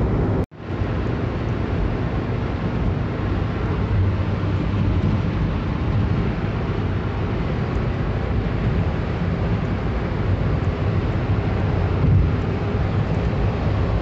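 Steady road and engine noise heard inside a vehicle cruising on a highway, mostly a deep rumble. The sound drops out for an instant about half a second in.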